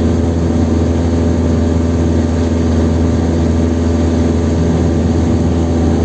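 Chevrolet Kadett 1.8 four-cylinder engine pulling at a steady high road speed, with wind and road noise. The engine note holds steady, without gear changes or revving.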